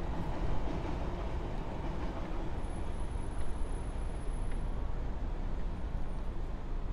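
Steady low rumble of passing vehicles in city streets.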